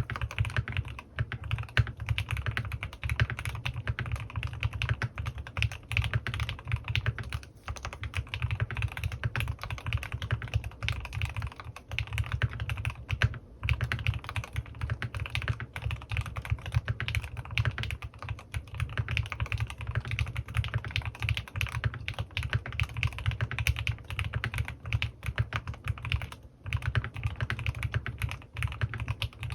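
Mechanical keyboard with lubed Gateron North Pole linear switches and PBT keycaps being typed on fast and continuously, a steady stream of key strokes broken by a few brief pauses.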